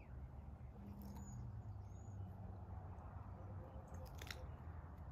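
Australian Shepherd chewing and mouthing a small orange object, with a few sharp crunching clicks about four seconds in, over a low steady rumble. Two faint short high chirps sound about one and two seconds in.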